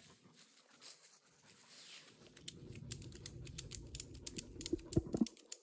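Footsteps on dry leaf litter, then from about two seconds in a run of quick, irregular clicks and rustles as a hammock's tree strap is pulled and adjusted at the tree.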